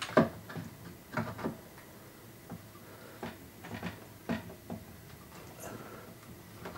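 Handling noises of a large polystone statue piece being lowered and fitted by its peg onto the statue's base: scattered light knocks, scrapes and rustles.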